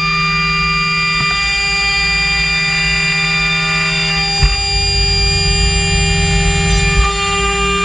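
Router spindle whining steadily as a spiral chip-limiting finishing-rougher bit mills a half lap in wood. There is a sharp knock about four and a half seconds in and another near seven seconds, and the cutting noise shifts after the first.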